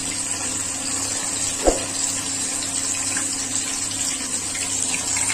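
Hot oil sizzling steadily as marinated anchovies deep-fry in a pan, with one short knock a little under two seconds in.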